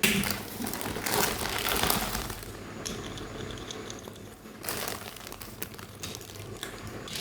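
Plastic toy packaging crinkling as it is handled, in bursts: the loudest during the first two and a half seconds, another about five seconds in, and a short one near the end.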